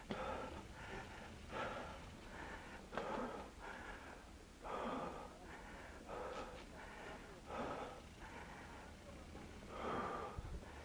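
A mountain biker breathing hard while riding, with loud puffing breaths about once a second.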